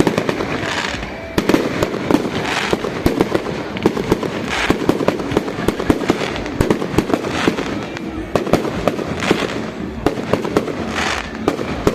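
Huge bonfire burning, with dense, rapid crackling and popping and a rushing sound that swells about every two seconds.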